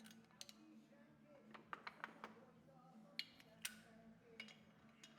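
Near silence with faint, scattered metallic clicks of hand tools at the engine: small clinks as the cylinder is bolted down onto the crankcase.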